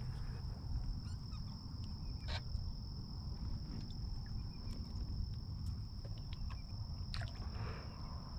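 Faint handling noises as a small redfish is lifted from the water and held in a kayak: a few soft clicks and knocks over a low rumble, with a steady high-pitched whine throughout.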